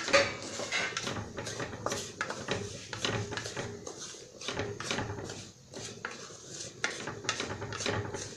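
A stirring utensil scraping and knocking against a frying pan as semolina is stirred and roasted in ghee, in quick irregular strokes.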